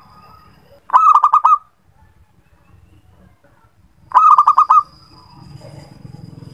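Zebra dove (perkutut) cooing: two short bursts, each a quick run of about five clipped notes, about three seconds apart.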